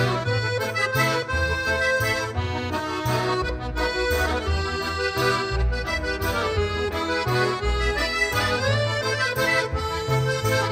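Instrumental background music, a melody over a bass line that changes note about every half second.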